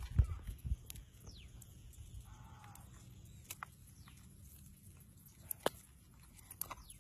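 Faint outdoor background with a couple of low thumps just after the start, a few scattered sharp clicks later on, and a few faint high falling chirps.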